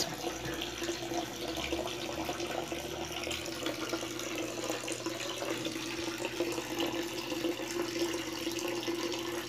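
Water running and splashing steadily into a fish tub, over a steady low hum.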